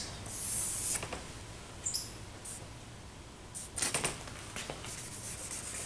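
Charcoal stick scratching across paper in a short stroke about a second in, with fainter scratchy strokes later. There is a brief high squeak about two seconds in and a few soft knocks around four seconds.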